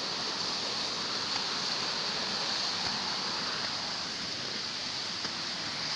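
Steady rushing outdoor noise with a constant high hiss above it and no distinct events.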